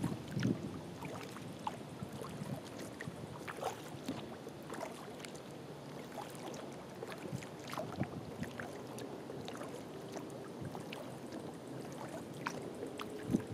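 Kayak paddle strokes on calm water: blades dipping in with small irregular splashes and drips, over a faint steady hiss.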